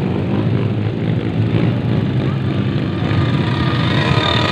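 Dirt bike engines running hard as the bikes climb a dirt trail, with one engine revving up and rising in pitch in the last second or so.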